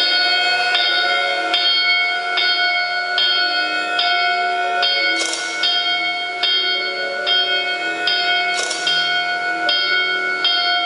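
Backing music of bell-like chimes, struck notes repeating in a steady pattern over a held tone, with two brighter cymbal-like swishes about five and eight and a half seconds in.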